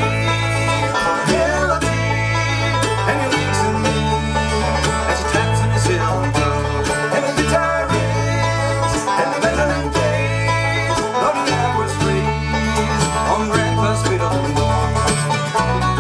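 Live bluegrass band playing an instrumental break between sung verses: banjo, mandolin, acoustic guitar and bass, with the bass holding a steady pulse under quick plucked-string picking.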